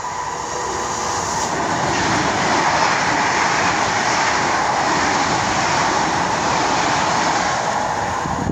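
ČD class 680 Pendolino electric train passing through close by at speed without stopping: a steady rush of wheels on rail and air that builds over the first couple of seconds, then holds loud before easing slightly near the end.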